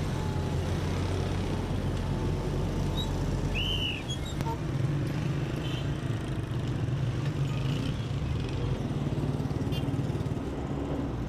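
Street traffic: vehicles driving past with a steady low engine and road rumble.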